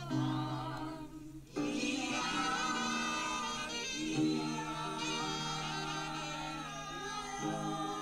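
Group of voices singing a children's song with instrumental backing; after a short break about a second and a half in, they hold one long note for several seconds.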